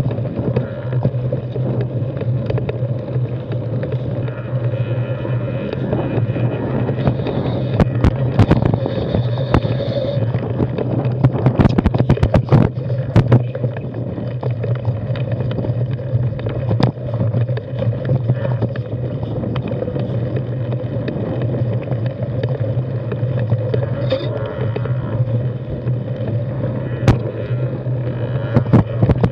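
Carbon 6Fattie mountain bike rolling over rocky dirt singletrack: a steady rumble of tyres and riding with frequent sharp clicks and knocks as the bike rattles over rocks, busiest a third of the way in.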